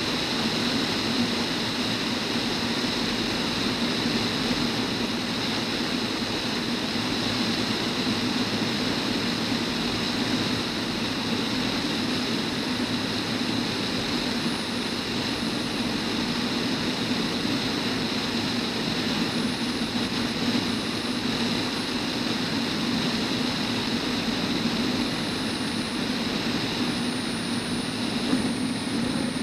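Steady drone of an RV-10's piston engine and propeller with rushing airflow, as the light plane descends on final approach and flares over the runway.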